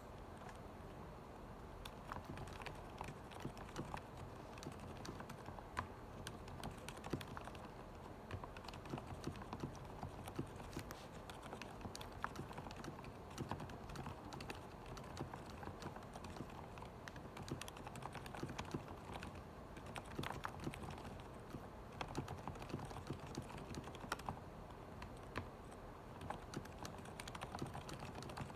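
Corsair Strafe mechanical keyboard with Cherry MX Silent Red switches lubed with Krytox 205g0, and lubed, clipped stabilisers, being typed on. A steady, irregular run of keystrokes begins about two seconds in.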